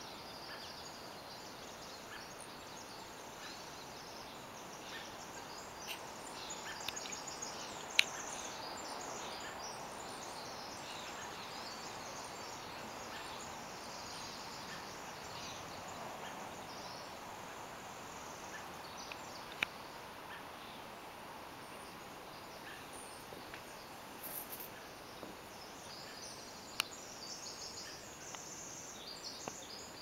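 Birds chirping and calling in the trees, in many short high notes scattered throughout, over a faint steady hiss. A few sharp clicks break in, the loudest about eight seconds in.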